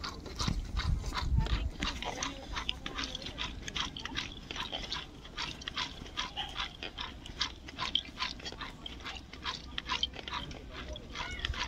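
Freshly cooked rice being tossed and mixed by hand in a large metal bowl: a steady run of soft patting and rustling as the grains fall back against the metal, several times a second. The ghee and spice mix are being worked into the boiled rice for biryani.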